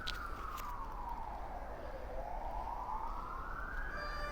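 A siren wailing: its tone falls slowly for about two seconds, then climbs back up over the next two.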